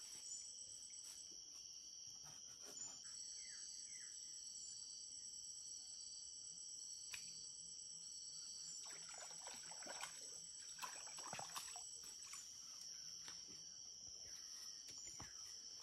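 Faint steady chorus of insects, several high buzzing tones held without a break, with scattered soft clicks and rustles, most of them in the second half.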